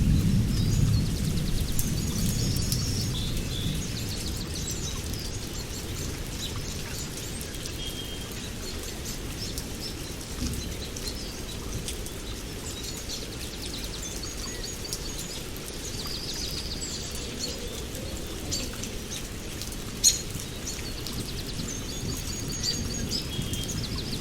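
Steady rain with birds chirping throughout, as the tail of a thunder rumble dies away in the first few seconds. One sharp click sounds about twenty seconds in.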